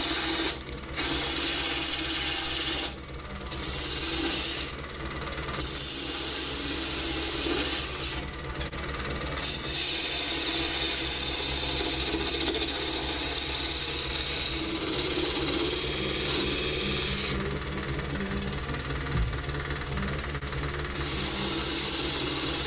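A midi wood lathe runs with a steady motor hum while a gouge cuts into a spinning blank of seasoned mesquite, making a rough scraping noise of wood being shaved. The cutting noise stops for a moment several times as the tool comes off the wood, then starts again.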